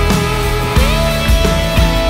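Instrumental background music in a rock style. A held lead note slides up in pitch a little under a second in, over sustained chords and regular drum hits.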